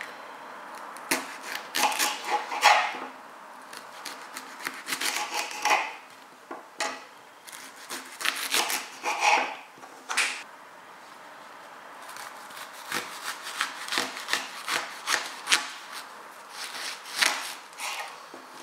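Kitchen knife cutting and trimming raw leeks on a worktop, the crisp leek layers crackling as they are cut and peeled, in several bursts of short strokes with brief pauses between them.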